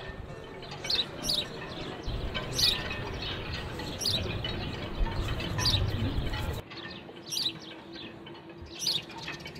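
Small birds chirping: short, sharp, high calls repeating about once a second over a low background rumble that drops away abruptly about two thirds of the way through.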